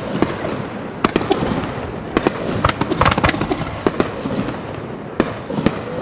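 Fireworks display: shells bursting in a series of sharp bangs at irregular intervals, some in quick clusters, over a continuous crackle.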